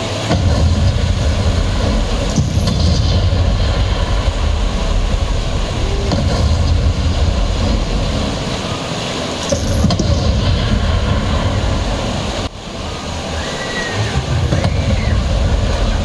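Steady rush of churning whitewater in a river-rapids ride channel, with a geyser-style water jet spraying up beside it.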